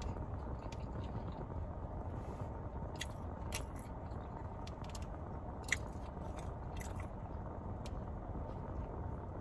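Close-miked chewing and mouth clicks of someone eating a chicken sandwich, with a handful of sharp smacks, the loudest about two thirds of the way through, over a steady low rumble.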